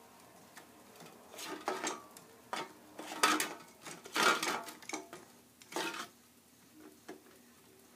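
Plastic Lego bricks clattering and scraping against an aluminium Coca-Cola can as it is worked out of a homemade Lego vending machine's opening by hand. There are about half a dozen short, irregular scrapes and knocks.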